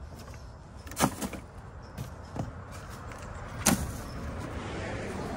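Items being handled and packed in a wagon of bagged food and bottled water: a sharp knock about a second in and another after three and a half seconds, a softer one between, with some rustling of plastic bags and cardboard, over a low steady rumble.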